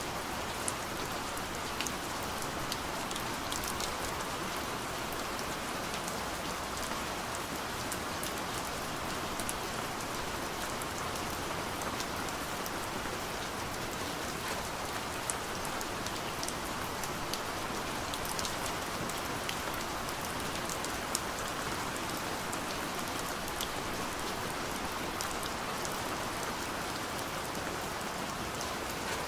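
Steady, gentle rain pattering on a window, a constant hiss with scattered sharp drop ticks throughout.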